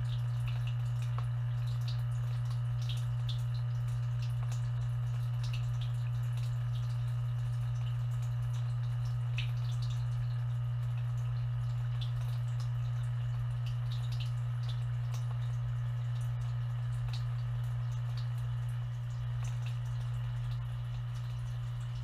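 Steady low hum from a running dishwasher, heard from inside the tub, with scattered drips and small ticks of water.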